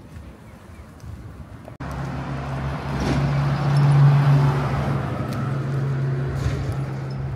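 Road traffic beside the pavement: a truck's steady engine hum with tyre and road noise, coming in suddenly about two seconds in, loudest around four seconds, then holding until it cuts off near the end.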